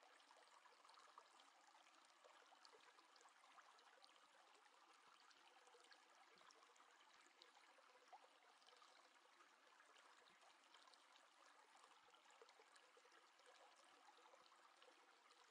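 Near silence: faint room hiss with a few tiny soft ticks.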